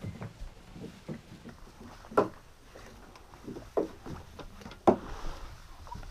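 Irregular knocks and soft thumps of mooring ropes being handled, coiled and dropped on a boat's cockpit deck, with two louder knocks about two seconds in and about five seconds in.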